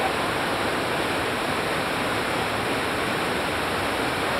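River waterfall rushing steadily, with whitewater pouring over a rock ledge into a churning pool.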